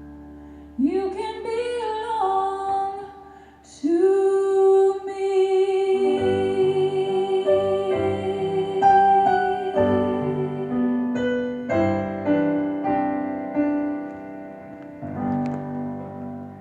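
A female singer holding long notes over piano chords, the ending of a slow gospel ballad. About a second in the voice slides up into a note, then holds one long note for about six seconds while the piano comes in with chords that run on after it.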